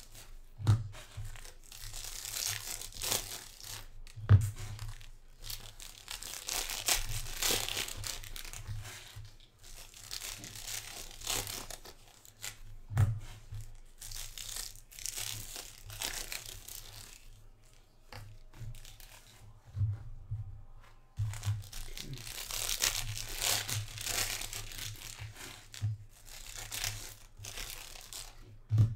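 Foil trading-card pack wrappers being torn open and crinkled, with cards shuffled and handled in spells of rustling and a few dull knocks on the table.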